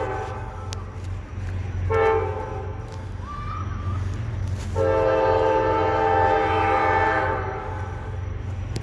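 Norfolk Southern diesel locomotive's air horn sounding from up the line: a long blast ending just after the start, a short blast about two seconds in, then a long blast from about five seconds in lasting about two and a half seconds, the close of the standard long-long-short-long grade-crossing signal. A steady low rumble lies underneath.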